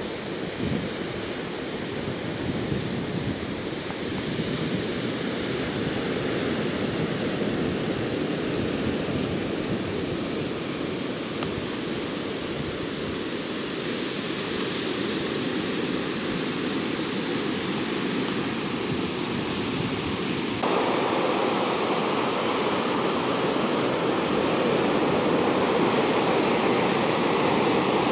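Ocean surf breaking and washing up a sandy beach, a steady rushing noise that jumps louder about two-thirds of the way through.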